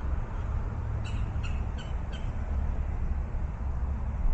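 A quick run of about five short bird calls, starting about a second in, over a steady low rumble.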